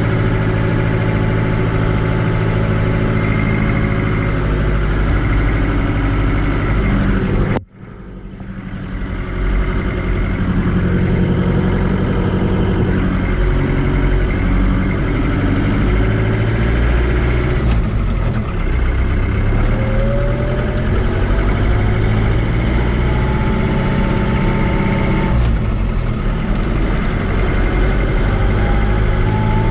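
Fiat 80-90 DT tractor's four-cylinder diesel engine running steadily while driving, heard from inside the cab. About eight seconds in the sound cuts out abruptly and fades back in. Later a whine rises in pitch twice.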